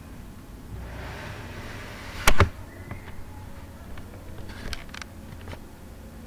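Low background room noise with a short hiss, then a sharp double knock about two seconds in, followed by a few light clicks.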